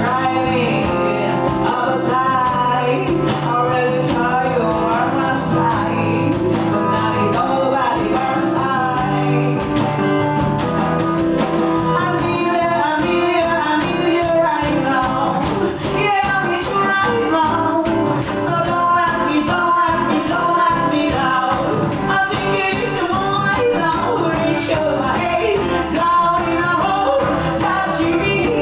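A band song playing: drums, guitars and bass, with a wavering melodic lead line over a steady beat.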